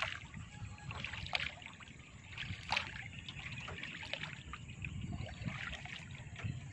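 Water lapping and splashing softly around a small boat drifting slowly through a waterway, with a few short, irregular splashes about once a second over a low steady rumble.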